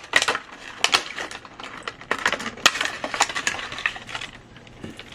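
Small plastic doll hair accessories clicking and clattering against each other and the tabletop as they are handled and sorted, a quick irregular run of light taps that thins out near the end.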